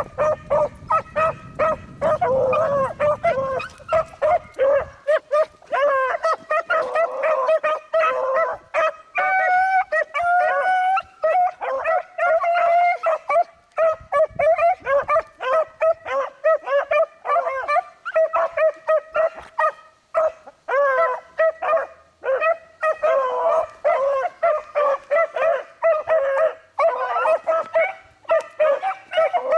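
A pack of beagles baying on a rabbit's scent trail, several voices overlapping in quick repeated barks with some longer drawn-out howls; the continuous cry means the hounds are running the track.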